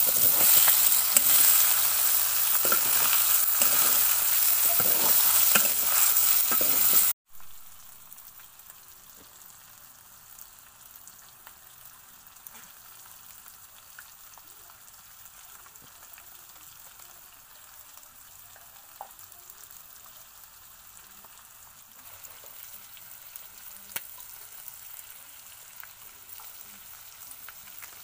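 Chicken frying and sizzling in oil in a steel kadai over a fire. The sizzle is loud for about the first seven seconds, then drops suddenly to a faint hiss.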